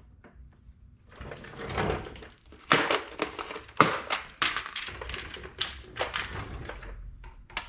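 Irregular knocks, clicks and clunks, a dozen or so in quick uneven succession over several seconds, as of hard objects being handled and set down in a garage.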